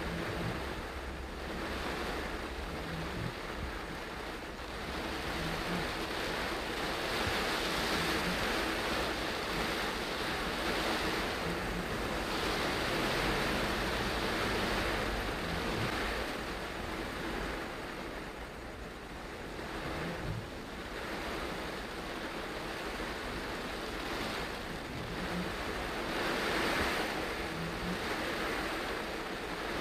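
Heavy tropical rain beating on the car's roof and windscreen, the hiss swelling and easing every few seconds as the wind gusts, over a low steady rumble of the car's engine.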